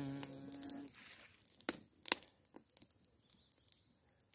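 A bumblebee buzzing in flight: a steady, even hum lasting about a second. It is followed by a few sharp clicks.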